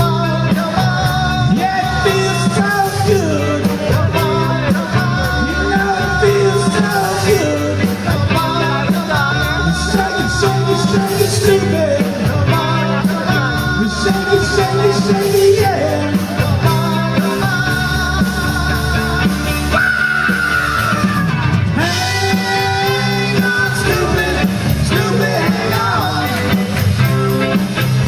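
Rock song with a steady beat and a singing voice, playing as a soundtrack.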